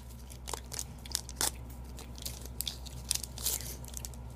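Foil wrapper of a Pokémon XY BREAKpoint booster pack being torn open and crinkled by hand: scattered short crackles.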